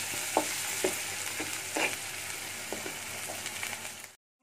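Onion and spice masala sizzling in hot oil in a kadai, stirred with a spatula that scrapes and clicks against the pan a few times. This is the masala being fried down (kosha) until cooked through. The sound cuts off suddenly near the end.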